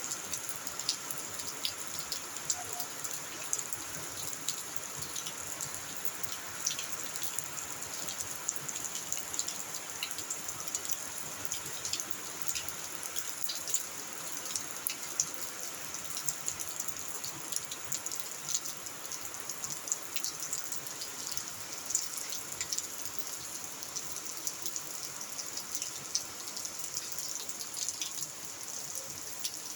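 Steady rain falling, with many separate drop strikes heard through it.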